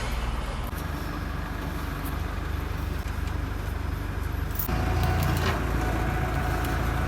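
Heavy machinery running with a steady low hum, getting louder a little over halfway through as a steady whine joins it.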